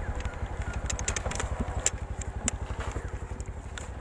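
Motorcycle engine running steadily at low speed, with scattered clicks and rattles from riding over a rough, stony dirt track.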